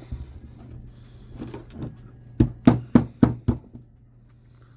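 A few faint clicks, then five sharp knocks in quick succession, about four a second: hand tools striking and prying at an electric motor's stator while its copper windings are worked out.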